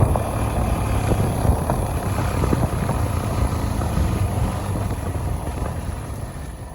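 Motorcycle engine running under way, with wind rushing over the microphone; the sound eases slightly near the end.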